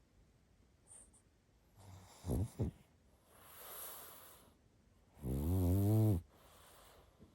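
A sleeping pug snoring: a couple of short snorts about two seconds in, a breathy exhale, then one long, loud, pitched snore just after five seconds.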